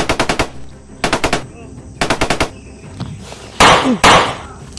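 Machine-gun fire in three short rapid bursts about a second apart, each a quick string of shots, followed near the end by two much louder, longer blasts.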